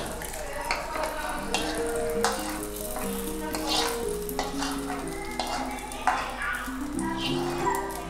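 A steel ladle scrapes and clinks against an iron kadhai and a dal pot as a hot tomato tadka is scooped out and stirred into dal, with some sizzling. Soft instrumental music with held notes plays underneath.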